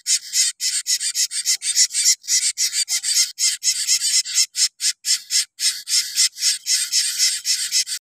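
Nestling birds calling nonstop with short, raspy, high cheeps, about five a second: the begging calls of very young, unfledged chicks.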